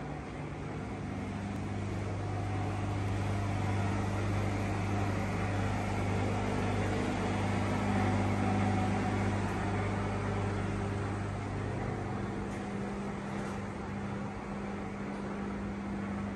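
Steady low electrical hum with a faint whirring haze over it, swelling a little in the middle and easing off toward the end.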